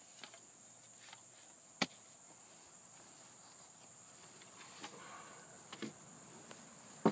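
Steady high-pitched insect chirring in the background, with a few sharp knocks, the clearest about two seconds in and another at the very end.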